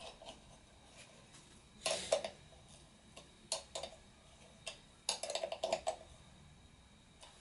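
Light clicks and rattles of small plastic parts being handled, in a few short clusters with a denser run about five seconds in: a propeller being fitted onto a quadcopter's motor.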